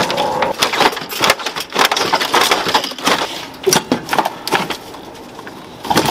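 Plastic parts and wiring clattering and snapping as a scrapped car's wiring harness and interior components are torn out by hand: irregular cracks and knocks with crackling between them, easing off briefly about five seconds in.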